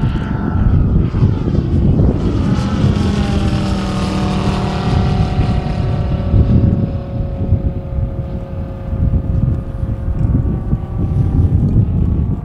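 Engine and propeller of a one-third-scale radio-controlled Mitsubishi A6M Zero model flying past. It is loudest a few seconds in, and its pitch falls as it goes by. A low wind rumble on the microphone lies underneath.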